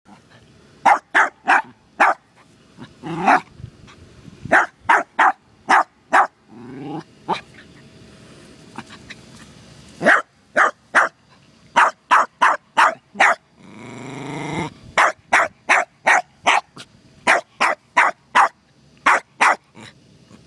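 Cairn terrier barking at a turtle in quick runs of short, sharp barks, with a few longer rising yelps and a drawn-out growl that swells about two-thirds of the way through.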